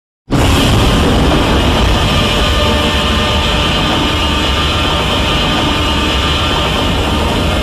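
A film sound effect: a loud, steady rushing rumble that starts abruptly a fraction of a second in and runs on unbroken, with deep rumble beneath a hissing, roaring upper layer.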